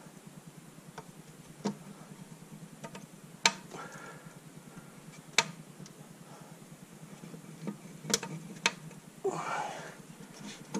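Scattered sharp knocks and clicks, about five spread a second or two apart, from the lower intake manifold of a 3.8 V6 being worked free of the engine.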